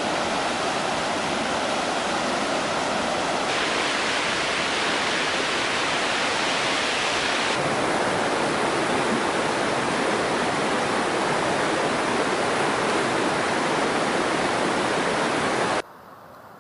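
Waterfall's white water rushing in a steady, dense wash of noise. It changes tone twice and cuts off abruptly near the end, leaving a much quieter background.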